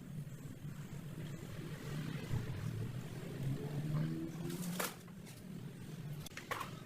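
An engine running steadily with a low hum, and a sharp click a little before five seconds in.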